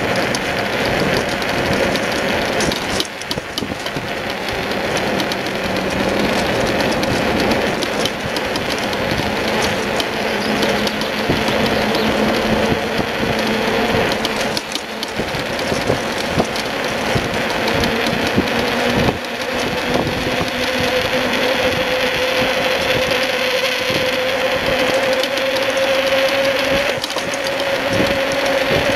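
Steady rolling noise of a wheeled dog trailer being towed along a paved road, with light rattling and clicking from the frame and a steady hum that rises slightly in pitch near the end.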